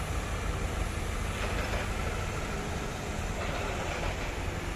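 Steady low rumble of a diesel engine running, from the mobile hydra crane working at the girder.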